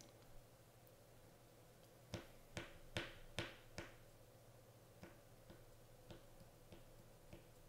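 Light computer mouse clicks over a faint steady hum: five quick, louder clicks about two seconds in, then a string of fainter clicks roughly every half second.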